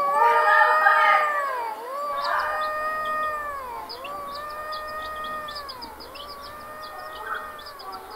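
Four long animal calls in a row, each rising, holding and then falling in pitch, about two seconds apart and growing fainter. Many quick high chirps join from about halfway through.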